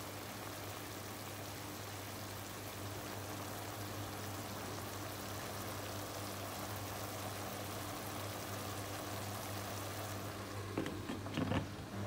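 Chicken adobo simmering in an open pot on a gas stove, a steady hiss over a low hum. Near the end, a few short clinks as the glass lid is set back on the pot.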